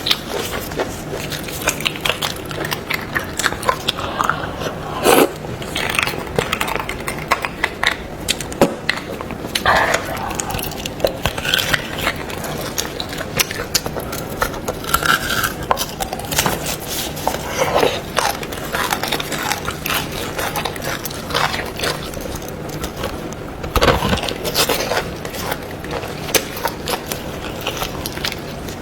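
Close-up eating sounds from boiled beef bone marrow being eaten: irregular chewing, smacking and sucking, mixed with sharp clicks and scraping.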